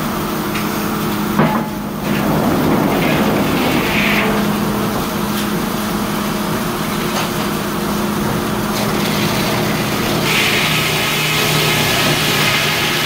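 Sawmill machinery running with a steady hum while a debarking tool scrapes a strip of bark off the log on the carriage where the blade will cut, to keep the sand and dirt in the bark from dulling the blade. There is a sharp knock about a second and a half in, and a louder hiss about ten seconds in.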